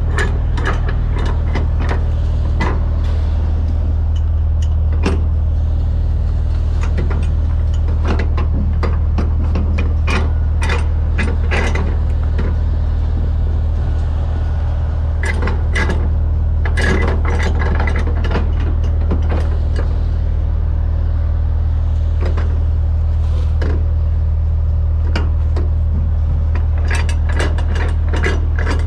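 Cargo straps being worked and tightened on a flatbed trailer: irregular clusters of ratcheting clicks and metal clinks, over a steady low hum.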